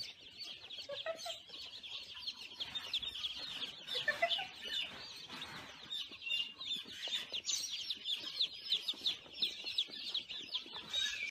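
A crowd of baby chicks peeping together: a dense, high chorus of many overlapping short cheeps.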